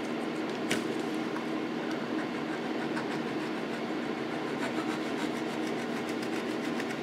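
Electric fan running steadily, with the light scratch of a needle file working over soldered copper wire and lead, and a few faint clicks.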